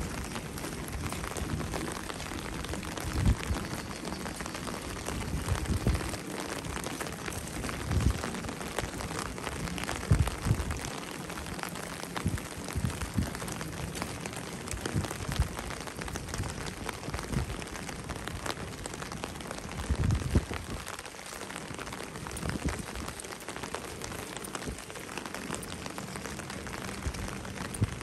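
Steady heavy rain hissing on wet pavement and buildings, with a few short low thumps scattered through it.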